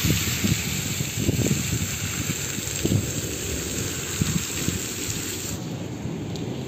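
Heavy rain, with a stream of runoff pouring off a roof edge and splashing onto wet paving, coming in low, uneven surges. About five and a half seconds in it changes to lighter, steadier rain.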